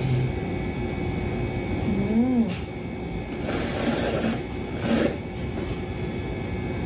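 Instant noodles slurped in through the lips: a longer noisy suck about three and a half seconds in and a shorter one about a second later. It is preceded by a brief rising-and-falling hummed 'mm'.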